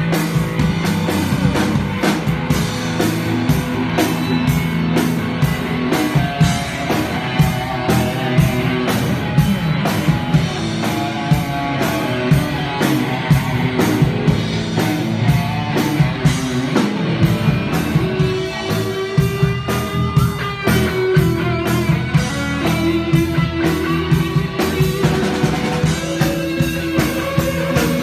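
Live rock band playing loud: electric guitar over a steady drum-kit beat, with guitar notes sliding in pitch about two-thirds of the way through.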